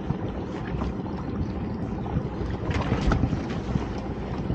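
Wind buffeting the microphone over choppy water lapping at a small boat, with a few short knocks and rattles from a lobster pot being handled about three seconds in.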